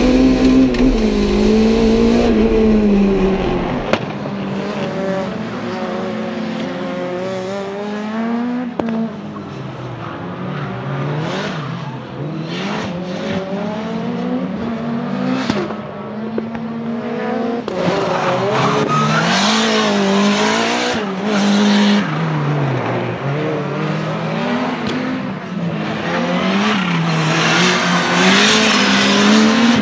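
Race-tuned Renault 5 GT Turbo's turbocharged 1.4-litre four-cylinder engine, making about 300 hp, revving hard up and down through the gears on a tight circuit. It is heard first from inside the car, then from trackside as the car passes, with louder, noisier stretches as it comes close.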